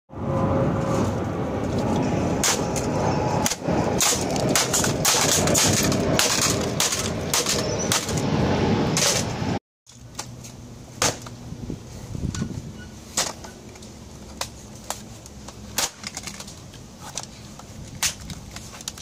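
A Nokia 3310 mobile phone on brick paving being struck again and again with a flat black object: sharp cracks and knocks. In the first half they come thick and fast within a loud, dense clatter; after a cut about halfway, single sharp knocks come every second or so over a quieter background.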